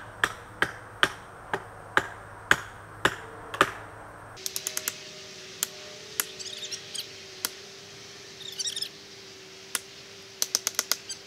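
Sharp knocks, about two a second, for the first four seconds. After a break, single knocks come here and there, a bird chirps briefly twice, and a quick run of knocks comes near the end.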